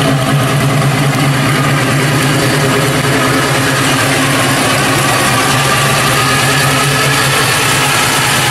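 1965 Chevrolet C10 custom pickup's engine running at idle through its dual exhaust as the truck rolls slowly, a steady low exhaust note.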